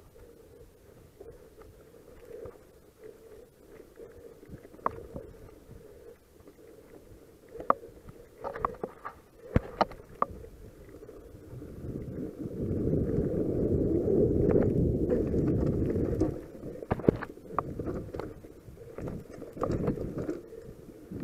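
Mountain bike riding fast down a dirt forest trail, heard from a camera on the bike: a low rumble of tyres and wind, broken by sharp rattles and knocks of the bike over bumps and roots. Past the middle the rush grows much louder for a few seconds as speed builds, then more knocks follow.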